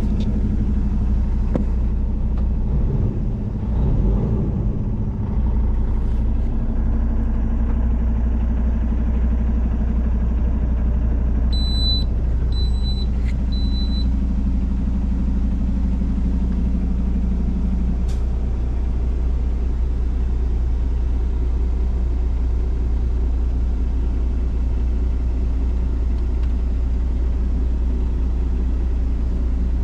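Diesel engine of a 2018 International LT625 semi truck tractor idling, heard from inside the cab as a steady low rumble. Three short high beeps sound about twelve seconds in.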